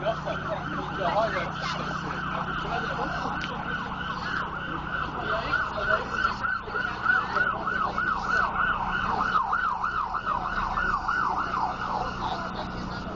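Emergency vehicle siren in a fast yelp, rising and falling about three times a second, loudest in the middle and fading near the end, over a steady low hum.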